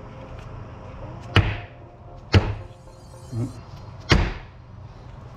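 Rubber mallet striking a steel socket three times, about a second apart, to tap a bushing into a motorcycle lever held in a bench vise.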